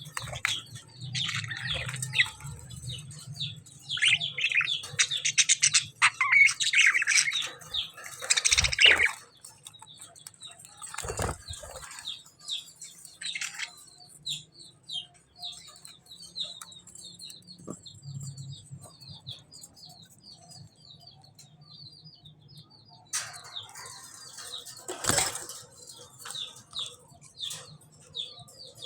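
A group of budgerigars chirping and warbling, busiest in the first third, then thinning to a rapid run of short repeated chirps before picking up again near the end. A few short rustles break in along the way.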